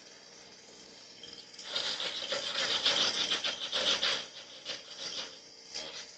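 A rough scraping noise made of many quick strokes, starting between one and two seconds in and lasting about two and a half seconds, followed by a few fainter scrapes.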